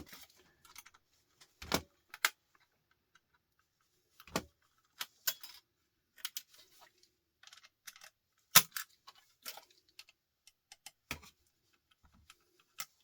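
Small screwdrivers and metal parts clicking and clinking as they are handled and tried on tiny screws in an electronic device. The clicks and knocks come at irregular intervals, with the loudest about eight and a half seconds in.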